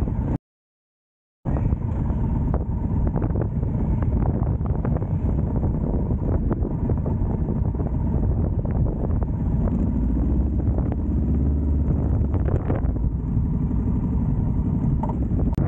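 Motorcycle engine running as the bike is ridden along, with short ticks and knocks over the steady rumble. The engine note is louder and deeper from about ten to thirteen seconds in. The sound drops out to silence for about a second just after the start.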